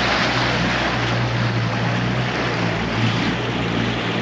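Mercury 350 outboard running steadily under way, a constant low drone under the rush of wake water and wind.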